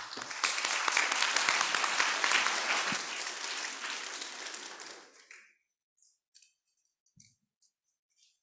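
An audience applauding, which dies away after about five seconds, leaving a few scattered clicks.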